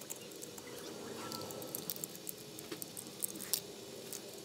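Utility knife blade cutting and scraping through the silicone around a broken Philips Hue bulb's LED dome. Scattered small clicks and crackles from the glass bits held in the silicone, thickest from about one and a half to three and a half seconds in.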